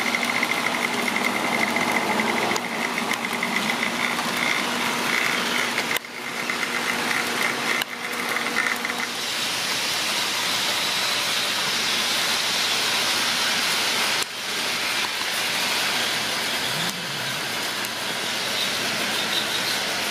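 HO scale model freight trains running on their track: a steady mechanical running hum of locomotive motors and rolling cars, with a thin high whine through the first half.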